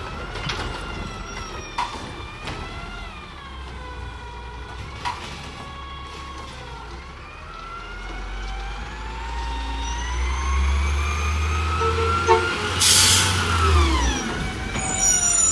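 Autocar WX64 garbage truck with a Heil Rapid Rail automated side loader, its engine revving up to drive the hydraulics and the hydraulic pump whining. The whine wavers at first, then rises steadily in pitch over several seconds and drops away near the end. A short loud hiss of air comes about thirteen seconds in.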